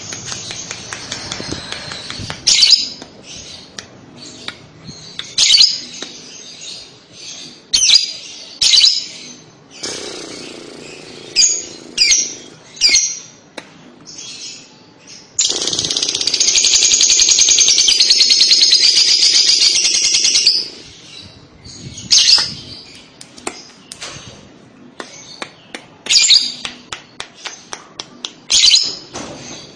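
Fischer's lovebird giving short, sharp, high chirps at intervals, then, about fifteen seconds in, a loud unbroken rapid chatter lasting about five seconds: the long 'ngekek' song that lovebird keepers use to draw other lovebirds into answering. More sharp chirps follow.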